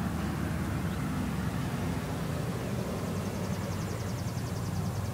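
Steady low engine rumble. A faint, fast, high-pitched ticking trill joins in for the last two seconds.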